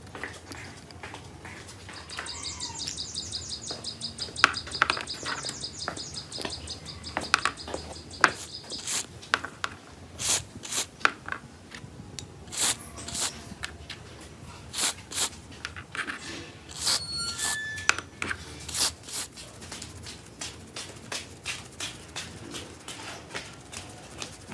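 Sharp clicks and taps of small metal motor parts being handled and set down on a table. Birds chirp in the background, with a fast high chirping trill lasting several seconds in the first half and a few more chirps later.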